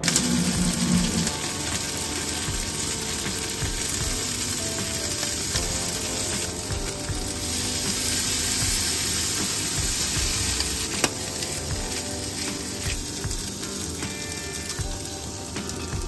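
Shrimp sizzling steadily as they fry in garlic oil in a frying pan.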